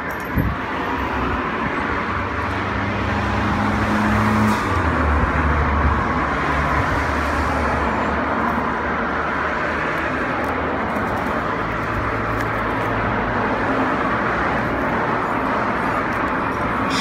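Road traffic: cars going by on the road, a steady wash of tyre and engine noise that swells and eases, with a low engine hum a few seconds in.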